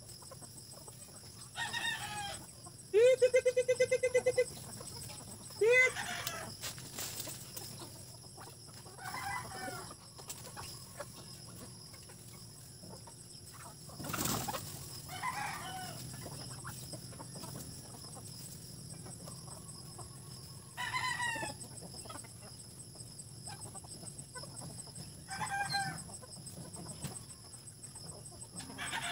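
A flock of native chickens clucking and calling as they feed, with rooster crowing among them. One loud, drawn-out call comes about three seconds in, followed by shorter calls at intervals of a few seconds.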